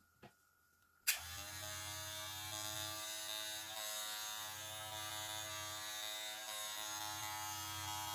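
Kemei KM-2296 electric hair clipper switched on with a click about a second in, then its motor and blade running with a steady buzz.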